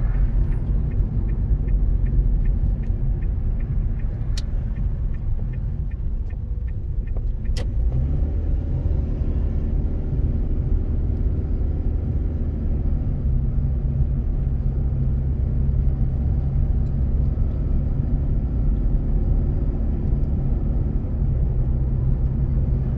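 Inside a car's cabin: the engine and road noise run throughout while the left turn indicator ticks steadily, several ticks a second, for the first seven or so seconds and then stops. After that the engine settles into a steady hum as the car drives on.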